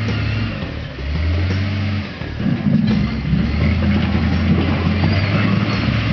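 JCB backhoe loader's diesel engine running, its pitch shifting a couple of times, then working harder and louder from a little over two seconds in.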